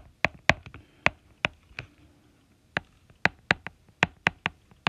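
Stylus tip tapping and clicking on an iPad's glass screen while handwriting a word: a quick, irregular run of sharp clicks, with a short pause about two seconds in.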